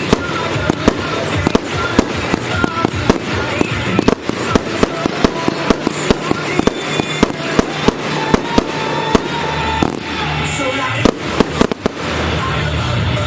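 Fireworks display going off in quick succession, a rapid run of sharp bangs and crackles over music. The bursts thin out near the end, leaving the music.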